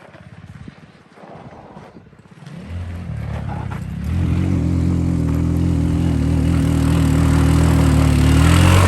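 A 200cc off-road go-kart engine comes in about two and a half seconds in and grows louder until about four seconds in, then runs steadily at low revs close by. Faint scattered clicks come before it.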